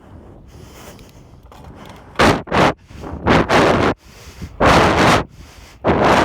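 Heavy, panting breaths of an out-of-breath rider blowing straight onto a phone microphone held in the mouth. After a quieter first two seconds they come as loud rushing blasts, often in pairs, about one every second.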